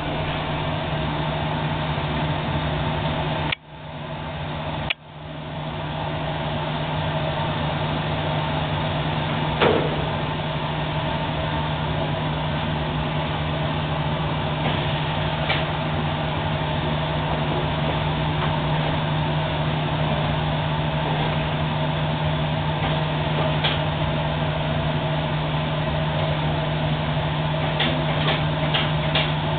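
High-frequency plastics welding machine running with a steady mechanical hum and noise. Two sharp clicks come about three and a half and five seconds in, each followed by a brief dip in the sound before it comes back up.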